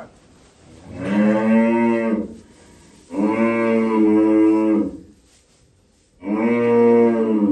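Cattle mooing: three long, loud moos, each lasting one to two seconds, with short gaps between them.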